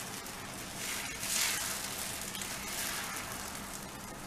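Cucumber thalipeeth batter sizzling on a hot tawa as it is spread thin with wet hands, the water hissing on the hot iron. The sizzle swells briefly about a second in.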